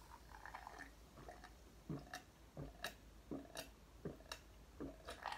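A person gulping carbonated cola from a glass: a series of about eight quiet swallows, roughly one every two-thirds of a second.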